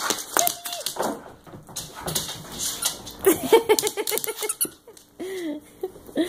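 A puppy playing with a toy on a hardwood floor: its claws click and skitter on the boards, with a few short squeaks bending up and down.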